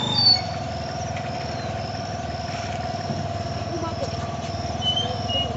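Small petrol scooter engine running steadily at low speed as the scooter rolls forward, its pitch dropping slightly just at the start as the throttle eases. Short high chirps sound over it now and then.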